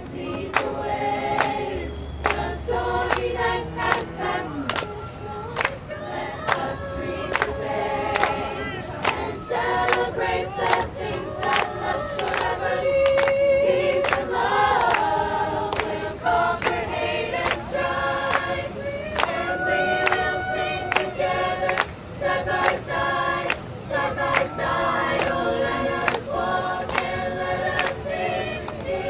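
Mixed-voice student choir singing a cappella, with sharp hand claps on the beat.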